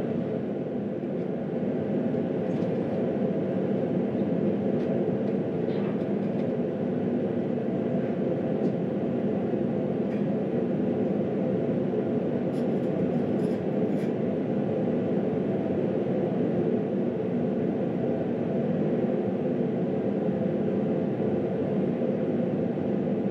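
Forced-air shop heater running with a steady, even roar. A few faint clicks and ticks come about halfway through as a bar clamp is ratcheted down onto a steel plate.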